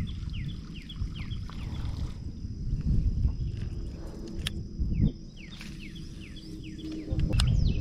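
Birds chirping: runs of short, quick falling chirps that come in two spells, over a steady low rumble that grows louder near the end.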